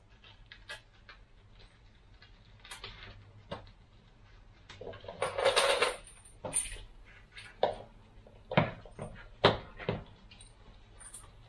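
Handling noise from a resistance tube band set: small clicks of its metal clips and handles, a stretch of rustling about halfway through, then a few sharp knocks near the end.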